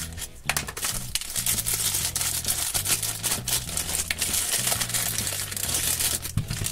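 Clear plastic wrapper crinkling as it is handled and pulled open.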